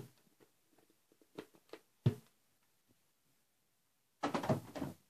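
Plastic toy gun being handled: a sharp click at the start and a few small clicks, a second sharp knock about two seconds in, and a short burst of clattering and rustling near the end.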